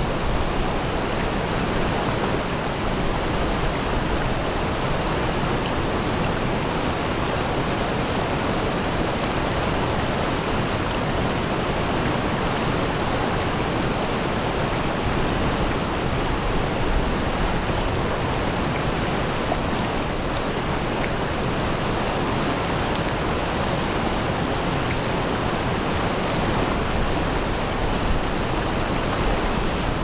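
Mountain stream flowing steadily over rocks into a shallow pool, a constant rushing and babbling of water.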